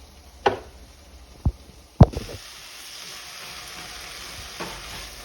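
A few knocks of cookware, the loudest about two seconds in, then food sizzling steadily in a hot skillet.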